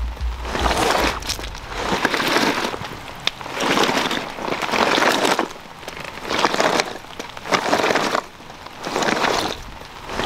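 A fabric bag being dragged over gravel in repeated pulls, each pull a scraping crunch of about a second with short pauses between.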